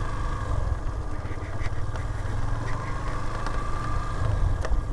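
Yamaha FZ-S motorcycle's single-cylinder engine running steadily as it is ridden slowly, a low rumble with a faint high whine over it.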